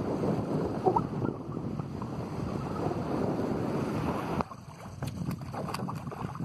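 Wind buffeting the microphone over choppy water lapping the shore. About four seconds in it cuts to a quieter scene with short splashes of a hooked pejerrey thrashing at the surface beside a landing net.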